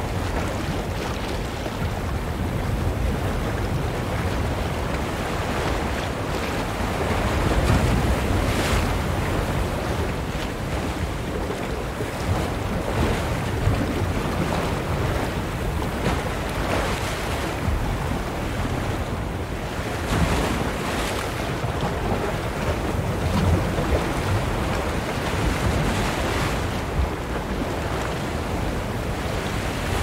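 Ocean waves splashing and washing in: a steady rushing surf with brighter splashes every few seconds.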